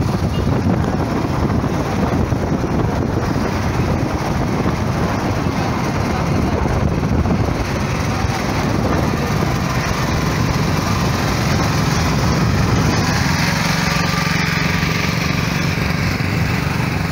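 A small motorcycle engine running at road speed, heard from the passenger seat, with heavy wind and road rush on the microphone. About thirteen seconds in, the engine settles into a steadier hum.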